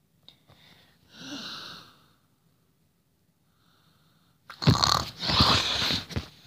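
A boy huffing and snorting breathily right against the microphone: one soft breath about a second in, then a loud run of quick snorting huffs for about a second and a half near the end.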